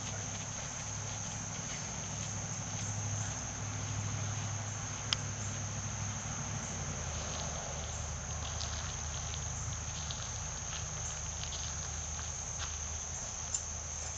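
Steady high-pitched insect chorus with a low steady hum beneath it that drops slightly in pitch about halfway through, and two short sharp clicks.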